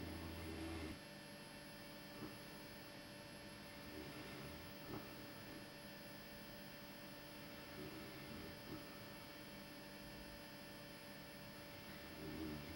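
Faint snoring, one soft snore about every four seconds, over a steady electrical hum.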